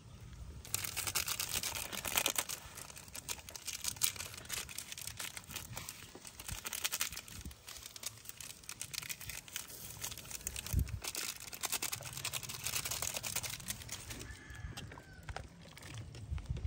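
Plastic seasoning sachets crinkling and being torn open, a dense crackly rustle that starts just under a second in and dies away near the end, over a low steady rumble.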